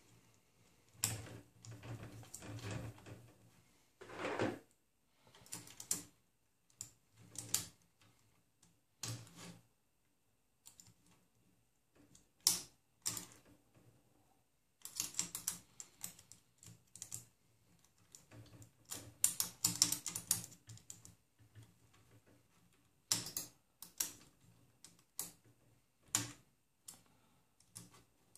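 Hex keys clicking and scraping on the bolts of a 3D printer's X carriage as they are tightened: irregular small clicks and taps, with a few quick runs of clicking.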